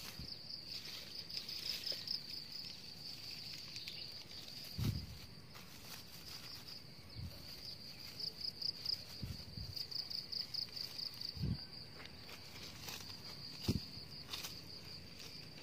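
Steady high-pitched insect chirring that pulses slightly, with a few short, dull low thumps scattered through it.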